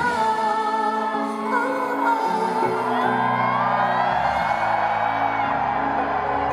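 Live pop ballad performance over a concert sound system: a voice singing long held notes, one sliding upward, over sustained band accompaniment.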